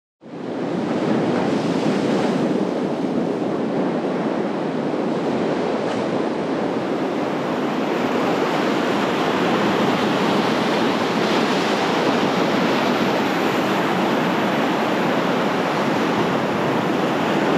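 Ocean surf breaking and washing over shoreline rocks, a steady loud rush of water that begins abruptly just after a moment of silence.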